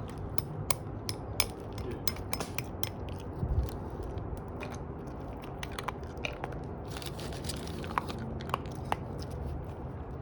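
Irregular sharp clicks and crunches, one to a few a second, closest together about seven to nine seconds in.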